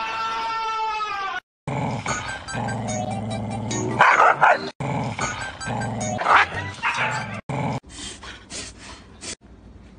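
An animal's long, high, steady call that stops about a second and a half in. Then a husky makes two loud vocal outbursts, about four and six seconds in, over background music with a steady beat.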